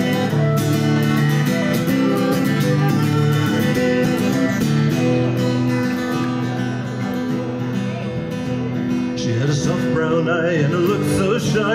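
Acoustic guitar strumming chords under a tin whistle playing the melody, an instrumental break in an Irish folk song. Near the end the whistle drops out and singing begins.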